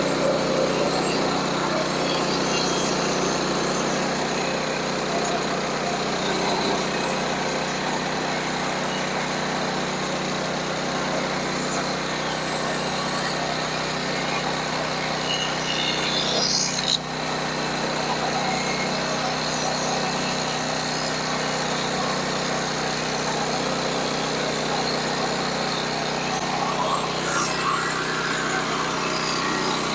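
Sawmill running steadily: a constant engine hum with mechanical noise over it. About seventeen seconds in, a brief rising whine ends in a sharp click and a short dip in level.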